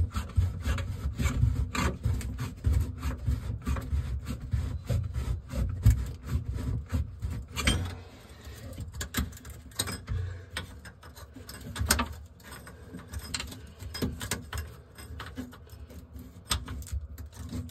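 Hand turning a metal nut along the crusted threads of a sink's pop-up drain body, a dry rubbing and scraping with many small clicks, louder in the first half.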